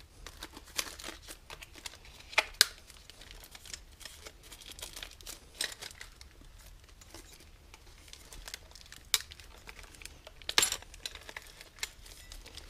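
Thin plastic wrapping crinkling and tearing as new engine main bearing shells are unwrapped by hand, with a few sharp clicks along the way.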